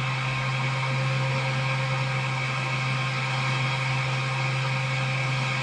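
Upgrade exhaust fan of an xTool F1 Ultra laser engraver running at full speed and blowing air out through its exhaust hose past a handheld vane anemometer: a steady hum under a constant rush of air.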